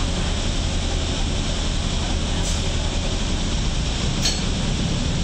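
Cabin noise of an electric shuttle bus on the move: a steady low hum with road rush, and two brief high clinks, about halfway through and near the end.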